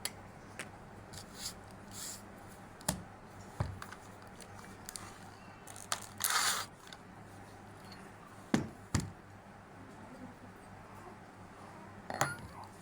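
Scattered sharp clicks and knocks of hard objects being handled, with one short scrape about six seconds in, over a faint steady hum. No motor is running.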